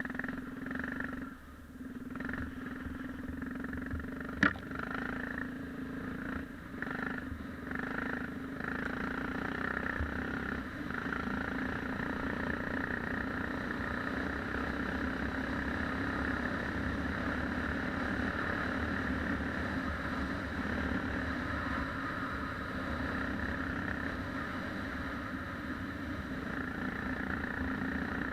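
Yamaha XT 600's single-cylinder four-stroke engine running under way, uneven for the first several seconds, then steady. A single sharp knock about four seconds in.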